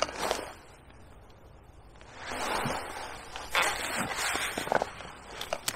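Water splashing as a hooked bream is drawn into a landing net, in two bursts, with a few light clicks and knocks near the end.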